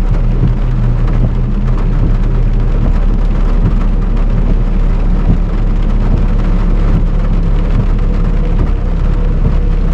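Steady rain with a vehicle engine running: a loud, even low rumble under a hiss of rain.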